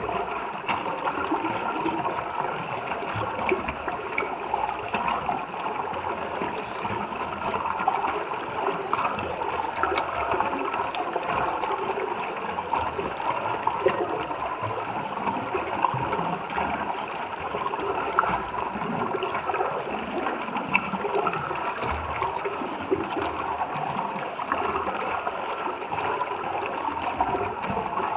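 Running water bubbling and gurgling steadily, like a small stream.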